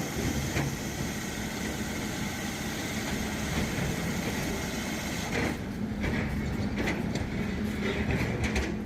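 Motor of a core drilling machine running steadily with a low hum. About halfway through, the high hiss drops away and a few short knocks and clatters sound.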